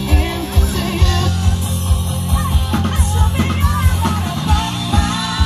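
Live rock band playing over a PA: electric guitars and bass, a steady drum beat and a singing voice.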